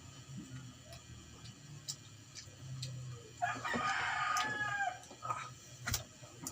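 A rooster crowing once, a call of about a second and a half starting about three and a half seconds in, with a few short sharp clicks before and after.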